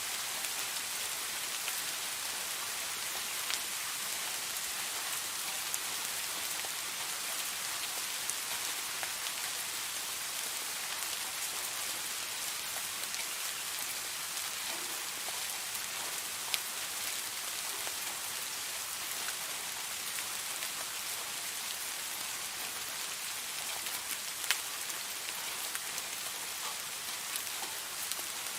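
Steady rain falling, an even hiss with scattered sharper raindrop ticks, the loudest about 24 seconds in.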